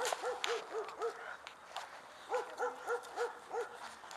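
A dog yelping in quick runs of short, high notes, about four a second: five at the start and six more about two seconds in.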